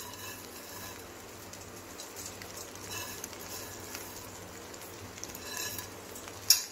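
Crisp fried onions crumbled between the fingers and sprinkled onto rice in a steel pot: a soft, crackly rustle. A single sharp click comes near the end.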